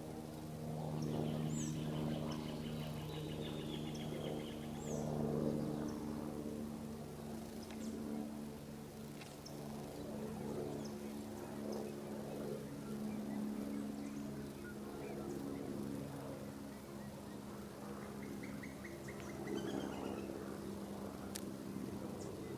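Birds calling, with short high chirps and a couple of rapid trills, over a steady low hum.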